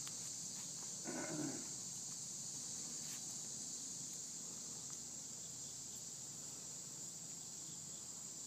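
Steady high-pitched chorus of insects, like crickets, with a brief low sound about a second in.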